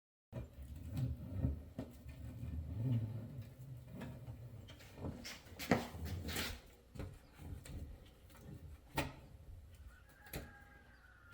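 An old vinyl window graphic being peeled off the glass: rustling handling noise with several short ripping crackles, the strongest about five to six and a half seconds in.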